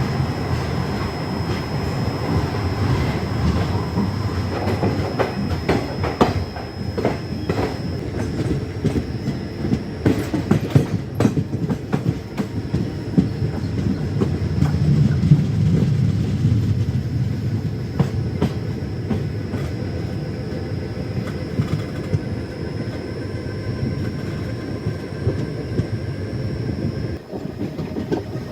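Passenger train running on the rails with a steady low rumble, its wheels clacking over rail joints in a run of sharp knocks between about five and twelve seconds in.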